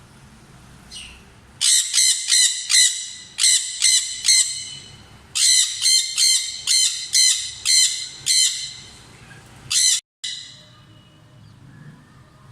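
Sun conure giving loud, high-pitched squawks in quick succession, about four a second, in three bouts with pauses between and one last call near the end.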